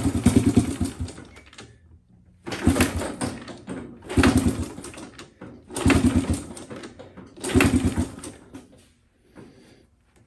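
Honda XL70's small single-cylinder four-stroke engine being kick-started again and again, about five times. Each kick gives a second or so of quick sputtering pulses that die away before the next kick.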